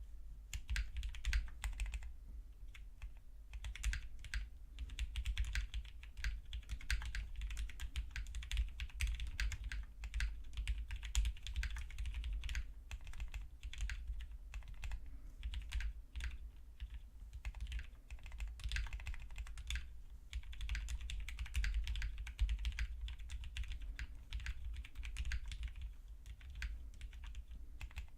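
Steady fast typing on an idb 60 prototype mechanical keyboard with linear Greetech red switch stems in retooled Cherry housings: a rapid, dense stream of key clacks with a few brief pauses.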